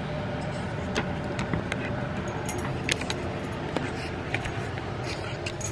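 Light metallic clinks and jingles from handling small metal pieces, a few separate sharp clicks over a few seconds, over a steady low hum.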